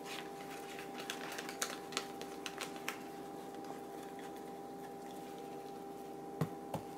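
Paper towel being handled: light crinkling and small clicks, denser in the first few seconds, then two soft knocks near the end, over a steady electrical hum.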